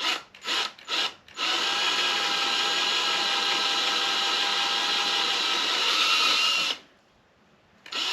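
Electric drill boring into an aluminium motorcycle swingarm with a second-size bit, enlarging a punched pilot hole: three short trigger blips, then a steady run of about five seconds that stops, and a fresh start just before the end.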